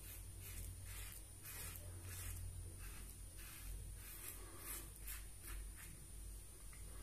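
Merkur 39C slant-bar safety razor with a Gillette 7 O'clock Super Platinum blade scraping through lathered stubble in short strokes, a soft rasp with each stroke, roughly two a second, on the second pass across the grain.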